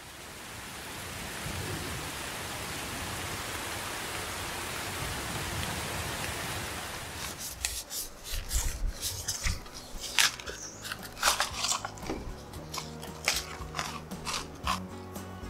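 Steady rain hiss, then crackling and scraping of a thin red plastic mould being twisted and pulled out of a cured cement plant pot, with cement crumbs scraping on the table. Soft music comes in near the end.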